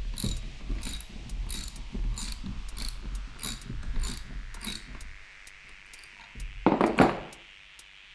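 Hand socket ratchet clicking in quick short strokes, about two to three clicks a second, as a bolt on an alternator bracket is turned. The clicking stops about five seconds in, followed by a single brief louder knock near the end.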